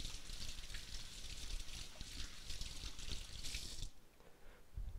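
Water running from a kitchen tap into the sink, shut off abruptly near four seconds in.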